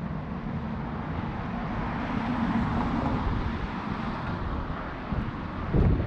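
A car passing on the street, its tyre noise swelling about two to three seconds in and then fading, over a low wind rumble on the microphone. The wind buffets harder near the end.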